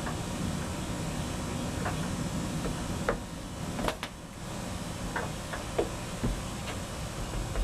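Casa Vieja Outlook ceiling fan coasting down after being switched off: a low steady rumble with scattered light ticks and clicks, several in the second half.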